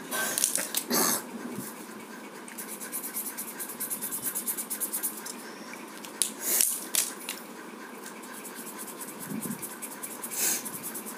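Faber-Castell Connector felt-tip pen scratching in quick back-and-forth strokes on chart paper while shading, with a few louder rubbing sounds in between.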